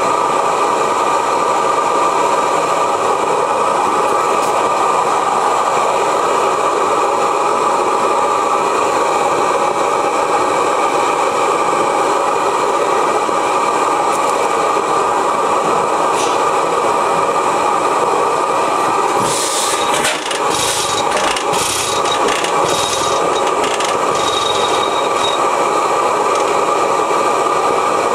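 Steady roar of the propane burner heating the hot tube of a 1905 Reid two-cycle oilfield engine, before a start attempt. About two-thirds of the way through, a cluster of short hissing bursts and clicks comes in for a few seconds.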